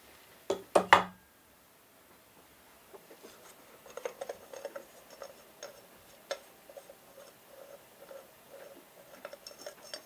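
Three sharp knocks about half a second to a second in, then a run of light metallic clicks and clinks as hands work on the head of a roughly 70-year-old sewing machine.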